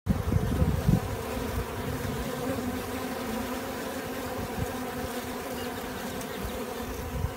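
Honeybee colony buzzing, a steady dense hum of many bees. Low rumbling thumps in the first second.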